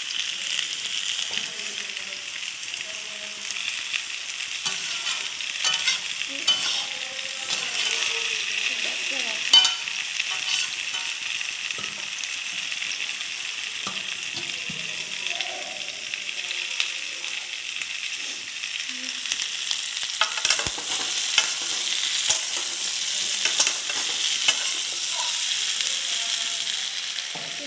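Food sizzling in hot oil in a wok, a steady hiss throughout. A spatula scrapes and clicks against the pan as the food is stirred, in irregular clusters.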